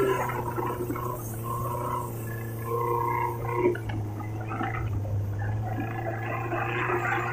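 Long-tail boat engine running steadily while the boat cruises along the canal: a steady low drone with higher tones that swell and fade over it.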